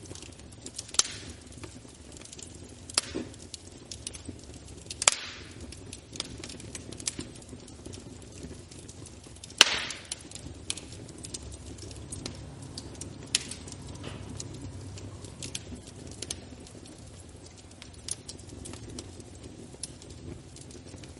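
Wood fire burning in a fireplace: a steady low hiss and rustle with irregular sharp crackles and pops. The loudest pop comes about halfway through.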